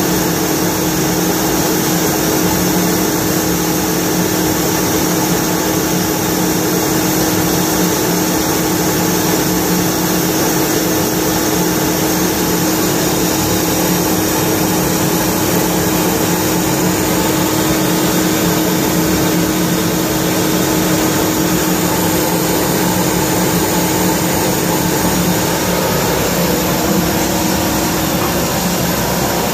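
Kaeser AS 31 25 hp rotary screw air compressor running steadily: a loud, even drone of motor and airend with a steady hum under a broad hiss.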